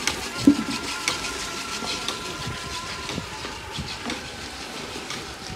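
Sugarcane juice boiling hard in open jaggery pans over a furnace: a steady hiss and bubbling with scattered crackles, and a thump about half a second in. A faint high whine runs under it for the first few seconds.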